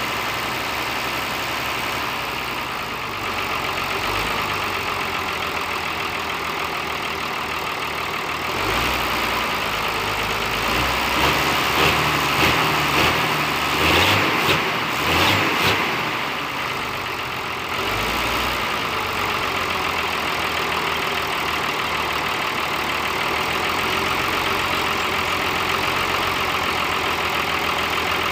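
Hino FM260TI truck's diesel engine, with a mechanical inline injection pump, running at idle. For several seconds in the middle it gets louder and rougher before settling back to a steady idle. The engine is being checked for sputtering, stalling and low power; the mechanic judges the sound still not right, with the injection pump timing needing more adjustment.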